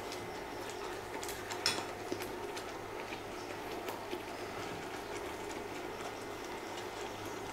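Wooden spatula stirring a thick, simmering rice, coconut and chhana mixture in milk in a pot, with a few light clicks of the spatula against the pot about one to two seconds in, over a faint steady low hum.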